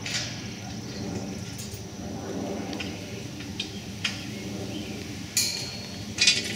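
Sharp metal clinks and knocks from hardware on a steel Rohn lattice tower being dismantled: a few scattered strikes, the loudest two near the end.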